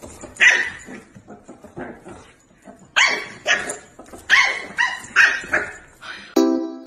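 Dog barking in short, sharp barks: one about half a second in, then a quick run of about five from three to six seconds in. A music jingle begins near the end.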